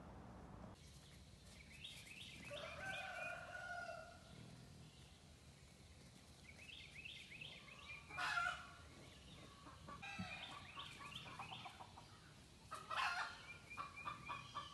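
Faint farmyard poultry calling: a rooster crowing once, about two to four seconds in, among repeated short chirping calls. Near the end comes a fast string of clucking calls.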